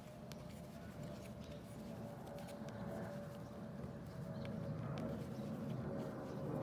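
Hand knitting with wooden needles and fluffy yarn: a steady soft rustle of yarn and hands, with a few faint clicks of the needles, over a faint steady hum.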